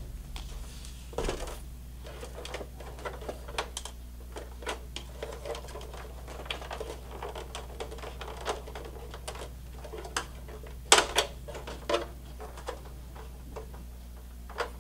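Irregular small plastic clicks and taps of hands handling a PlayStation 3 Phat's power supply and working its wire connector plugs loose, with a louder cluster of clicks about eleven seconds in.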